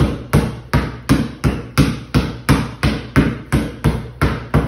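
Basketball dribbled on a concrete floor in a steady rhythm of about three bounces a second: a one-handed V dribble, the ball pushed side to side in front of the body.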